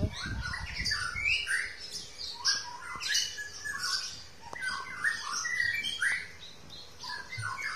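Small birds chirping, many short, quick chirps overlapping one another, with a low rumble in the first second.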